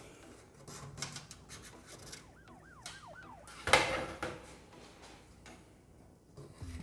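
Handling noise from working a PC case fan and its cable out of the computer case: light clicks and rubbing, a quick run of four short squeaks a little past the middle, and a louder clatter just under four seconds in.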